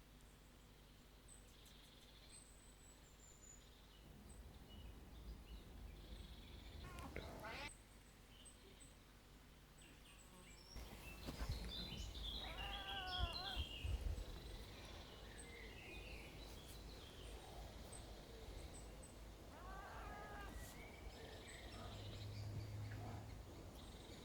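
Quiet outdoor ambience with faint high bird chirps and a few louder animal calls, the loudest cluster about halfway through, over a low rumble.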